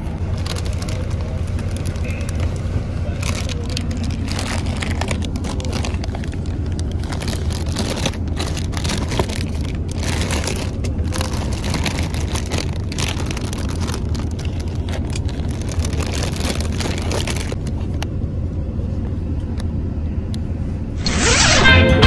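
Low steady drone of a coach's engine heard from inside the cabin, with plastic snack packets crinkling and rustling as they are handled from a few seconds in until near the end. Music with guitar starts about a second before the end.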